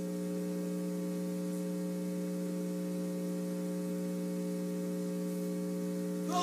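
Steady electrical mains hum in the recording: an unchanging low buzz with a stack of overtones, and no other sound over it.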